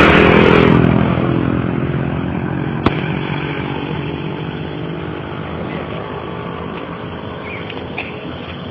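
A motor vehicle passes close by. Its engine note falls in pitch as it goes and fades away slowly over several seconds. A single sharp click sounds about three seconds in.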